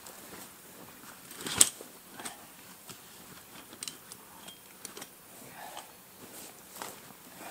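A metal-framed folding camping chair being handled and collapsed: scattered small clicks and rustles from its frame and fabric, with one sharp click about a second and a half in.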